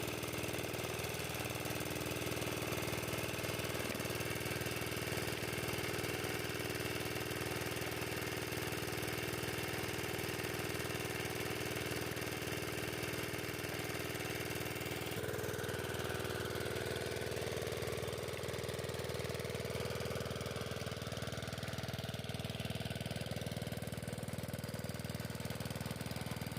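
An engine running steadily at an even pitch. Its tone shifts abruptly a little past halfway and then holds steady again.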